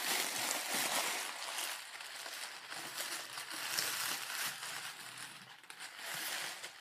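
Brown honeycomb paper wrapping crinkling and rustling as it is handled and folded around an object by hand.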